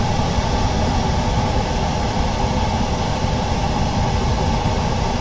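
Steady machine running noise, a low drone with a hiss over it, holding level with no breaks.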